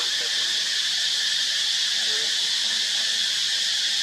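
Steady high-pitched drone of an insect chorus, even and unbroken.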